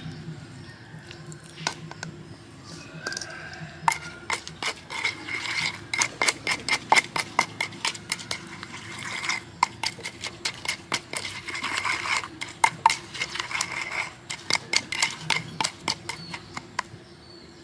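Wooden pestle pounding red chillies in a wooden mortar: a few scattered knocks at first, then a quick, even run of knocks, several a second, from about four seconds in.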